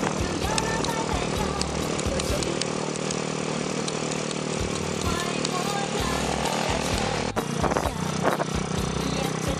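Motorcycle engine running steadily while riding, with wind rumbling on the microphone; the sound breaks off briefly about seven seconds in.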